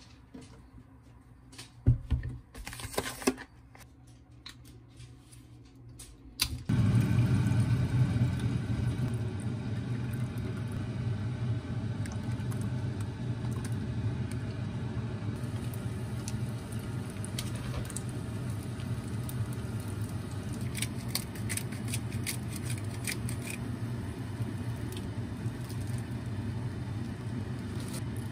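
A few soft plastic-bag crinkles and clicks, then about seven seconds in a steady low rumble with a hiss over it starts abruptly: a pot of bone broth heating on an induction cooktop. Light clicks and splashes come through a little after the twenty-second mark as rice cake slices go into the broth.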